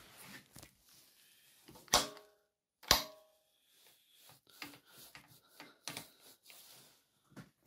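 Two sharp metallic clanks with a brief ring, about a second apart, then a run of lighter clicks and knocks: the gear lever of a Xingtai XT-180 mini tractor's freshly assembled gearbox being worked by hand.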